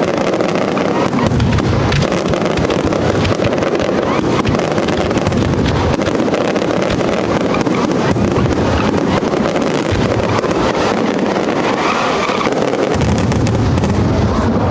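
Spanish display fireworks going off as aerial shells burst overhead, a dense, unbroken run of bangs and crackling with no pause.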